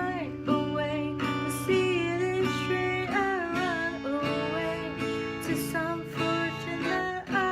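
Acoustic guitar strummed steadily with a woman singing along over it.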